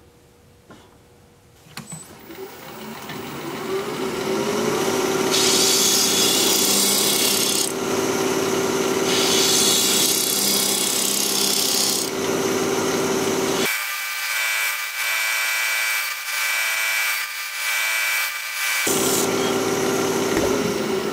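Wood lathe starting up and running at about 2000 RPM with a steady hum, while a half-inch bowl gouge cuts into the end of the spinning wooden blank in two long scraping, hissing bouts. Later the low hum gives way to a higher steady whine for about five seconds before returning.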